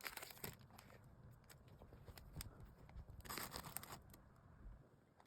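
Faint handling of packaging: scattered small clicks and taps, with a brief rustle of packaging a little over three seconds in.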